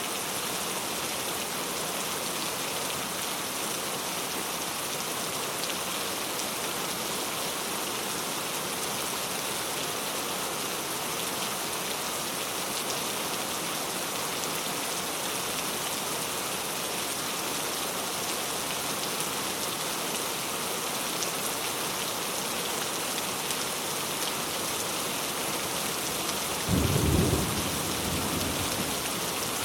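Steady rain falling in an even hiss, with a short, low rumble of thunder near the end.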